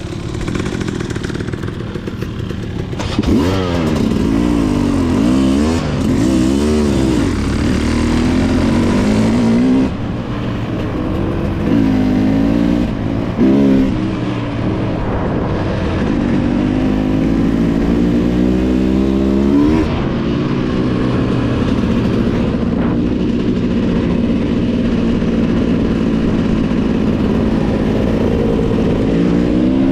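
Dirt bike engine under way, revving hard with its pitch climbing and dropping again and again. It makes a long climb about two-thirds of the way through, then runs at a steadier pitch and rises once more near the end.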